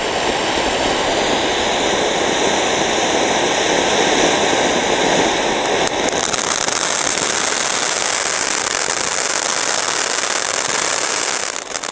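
Ground fountain firework burning with a steady, loud hiss of spraying sparks. About six seconds in the hiss turns higher and sharper, and near the end it starts to sputter.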